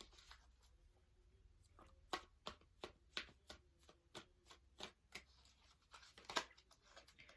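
Tarot cards being shuffled by hand: soft, irregular flicks and taps of cards, a few each second, starting about two seconds in.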